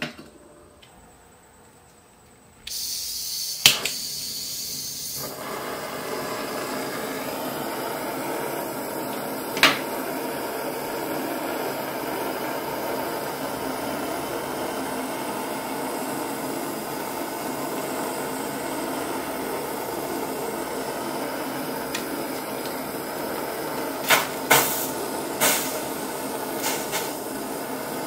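A handheld butane torch: a high hiss of gas and a click as it lights, then the flame burning with a steady hiss as it heats a silver spoon. A few short sharp clicks sound over it, one about ten seconds in and several a little before the end.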